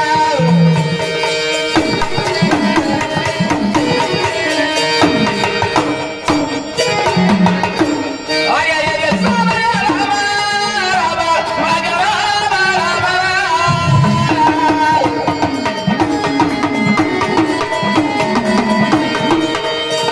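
Marathi folk devotional (gondhal) music: hand drums keep a steady beat under a melodic line that bends up and down, continuous throughout.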